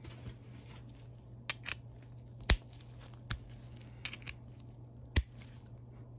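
Chrome socket pushed onto and pulled off a KAL USA 3/8-inch drive ratchet's square drive, giving sharp metal clicks as it snaps over the spring-loaded ball detent, two of them loud, about two and a half and five seconds in. The detent holds the socket only moderately, not real tight.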